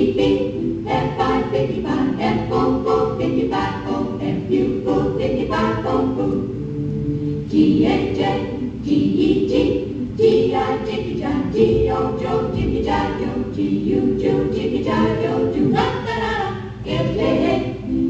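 Recorded music of a group of voices singing together in harmony, with little or no instrumental backing.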